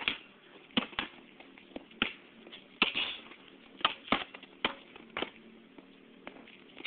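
Basketball bouncing on the driveway pavement: about ten sharp thumps at irregular spacing, over a faint steady hum.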